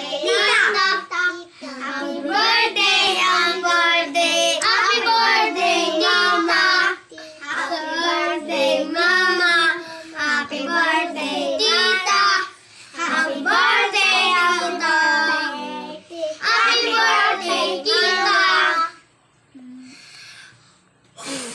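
A group of young children singing a birthday song together in phrases, stopping near the end.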